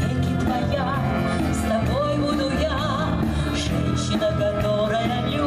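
Live brass band playing dance music, with a steady beat and a wavering melody line.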